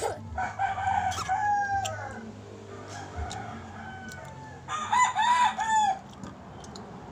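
Rooster crowing twice: a long crow in the first two seconds, then a shorter crow of three arched notes about five seconds in.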